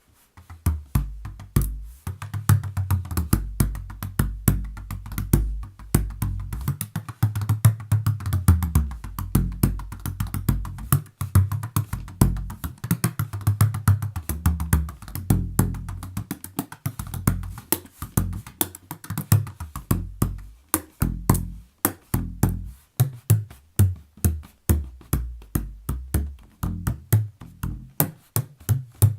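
An 18-inch made-in-Pakistan bodhrán with a thin skin played in a fast, continuous rhythm with a bundle-style tipper: deep drum strokes whose pitch shifts up and down, starting about a second in, the strokes sounding more separate near the end.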